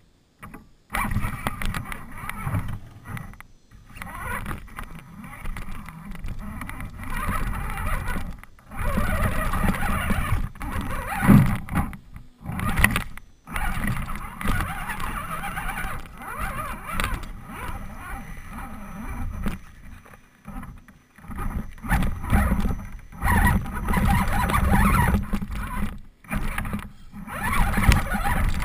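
RC rock crawler truck driving over rocks and dirt, picked up by a camera mounted on the truck: the motor and drivetrain run in bursts with short pauses, and the tyres and chassis crunch and knock against stones.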